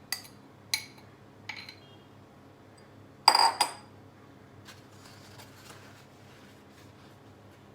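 Kitchenware clinking as a straining setup is handled: a few light clinks, then a louder ringing double clink about three seconds in, followed by faint rustling.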